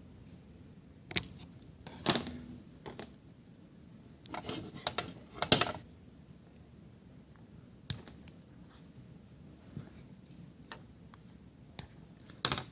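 Small wire cutters snipping the tips off thin lamp wires: a string of sharp snips and clicks at irregular intervals, with light handling rattles between them.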